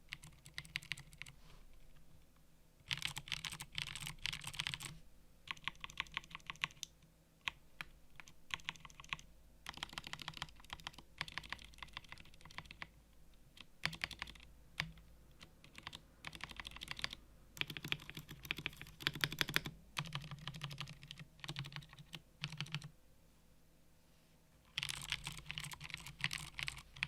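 Typing on a mechanical keyboard fitted with Cherry MX switches: bursts of rapid key clicks separated by short pauses.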